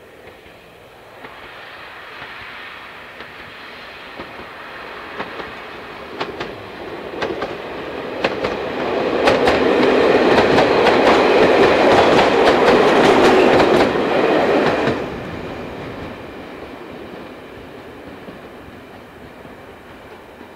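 Three-car Class 117 diesel multiple unit approaching and passing: underfloor diesel engines running and wheels clicking over rail joints, growing louder to a peak about halfway through, dropping suddenly as it goes by, then fading away.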